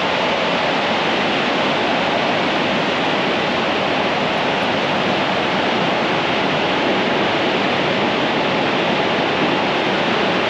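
Steady rush of Burgess Falls' waterfall, an even roar of falling water.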